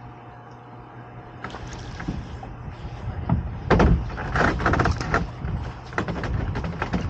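Irregular knocks and clunks with splashing as a small dinghy is worked into the shallows with an oar and a man climbs over the side into the water. The sounds start about a second and a half in and are loudest around four seconds in.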